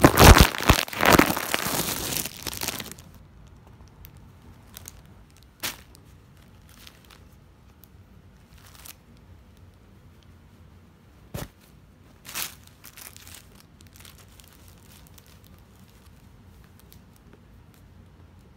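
Clear plastic poly bags around T-shirts crinkling and crackling as they are handled and opened: loud and continuous for the first three seconds, then a few short, sharp crackles scattered through the rest.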